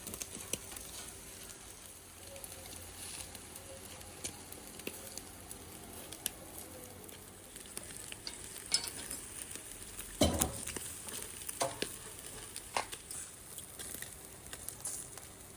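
Meat sizzling over charcoal on a grill, with scattered crackles and clicks and a louder knock about ten seconds in.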